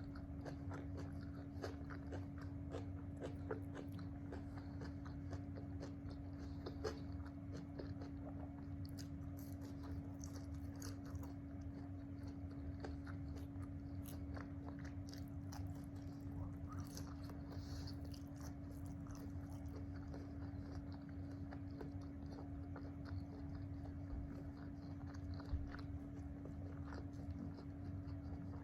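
Close-miked eating: chewing and biting with many small crunchy clicks, over a steady low hum.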